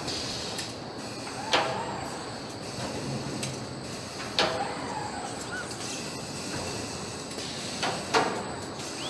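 Truck assembly-line factory noise: a steady background hum broken by four sharp metallic clanks, one about a second and a half in, one near the middle and two close together near the end.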